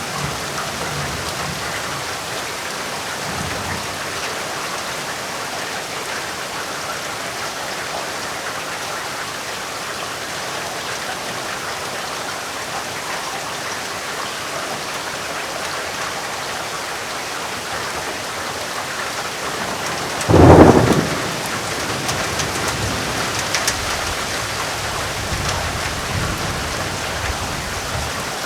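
Heavy rain falling steadily, with a sudden loud thunderclap about twenty seconds in, followed by several seconds of low rumbling.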